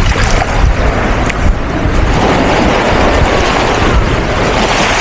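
Sea waves washing in the shallows, with steady wind rumbling on the microphone.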